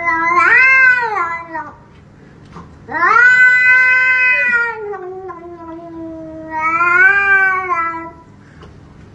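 Domestic cat yowling in long, drawn-out meows. The first call ends about a second and a half in. A second starts about three seconds in and lasts around five seconds, its pitch sliding down and then rising again near the end.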